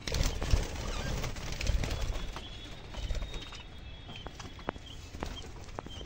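Rumbling, rustling and bumping from the phone being moved around in a budgerigar aviary, loudest over the first three seconds or so. Budgerigars chirp through it with scattered sharp ticks.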